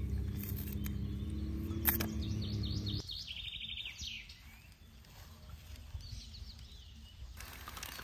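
A wine cork forced down into the bottle by thumb, ending in one sharp pop about two seconds in, over a steady low hum. Then small birds chirping and trilling in open country.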